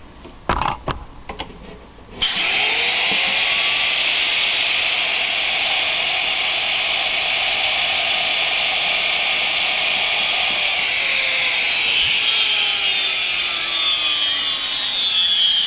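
After a few clicks, a 45,000 RPM, 1/2 HP high-speed CNC router spindle switches on about two seconds in and runs at speed with a loud, steady high-pitched whine and hiss. Faint pitch glides come and go in it.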